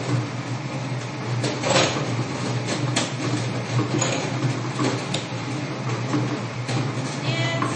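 Lottery drawing machine running, its numbered balls tumbling and clattering with irregular knocks over a steady low motor hum.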